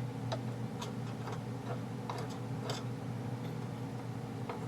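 About six light, irregularly spaced clicks of small parts in an opened airsoft gearbox being worked by hand, over a steady low hum.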